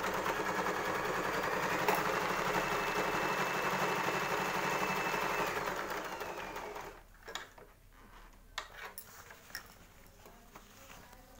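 Usha Allure DLX electric sewing machine running steadily, stitching through heavy denim with a faint high motor whine. It stops about six or seven seconds in, and a few light clicks follow.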